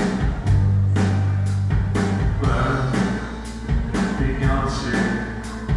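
Live rock band playing: a steady drum beat of about two hits a second, electric bass and guitars, with singing over it, heard from the audience of a club gig.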